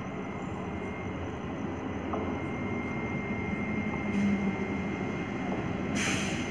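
Old electric multiple unit (EMU) local train approaching and running into the station, its rumble growing steadily louder. A short hiss comes near the end.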